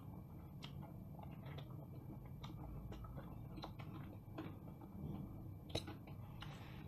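Two people eating noodles with forks from steel plates: faint, scattered clicks of the forks against the plates, with soft slurping and chewing. One sharper click near the end.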